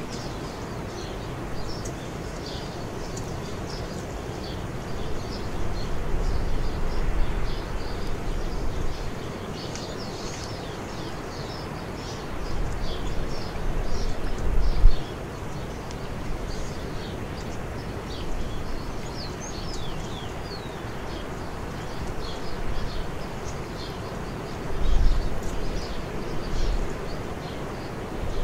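Small birds chirping over steady outdoor background noise, with a low rumble that swells a few times.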